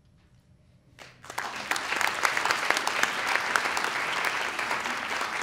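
After about a second of quiet, an audience breaks into applause, many hands clapping steadily and continuing.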